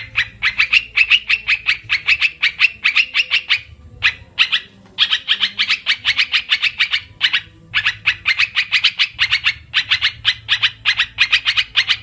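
Olive-winged bulbul (merbah belukar, trukan) lure-call recording: rapid chattering notes, about six a second, in long runs broken by short pauses about four seconds and seven and a half seconds in.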